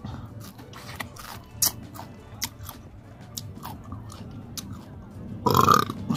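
Close-miked chewing and biting of food, with many short wet mouth clicks and crunches. About five and a half seconds in comes one loud burp lasting about half a second.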